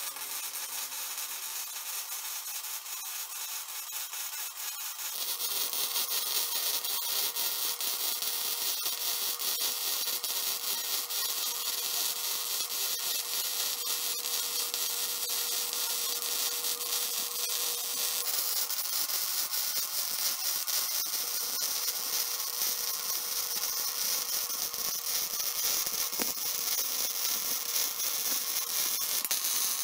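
Wire-feed welder's arc crackling and hissing steadily while welding square steel tubing, becoming fuller about five seconds in.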